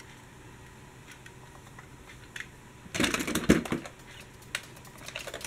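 Plastic and diecast toy trams and vehicles clattering against each other in a plastic storage box as they are handled: scattered clicks, with a dense burst of clatter about three seconds in.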